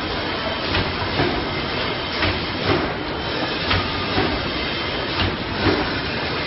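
Bubble mailer bag making machine running: a steady mechanical clatter with a regular double knock about every one and a half seconds as it cycles.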